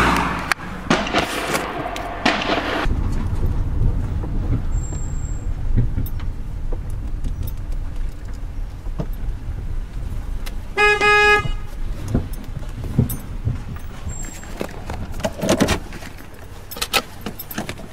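Low steady engine and road rumble heard from inside a moving car, with a single short car horn toot about eleven seconds in.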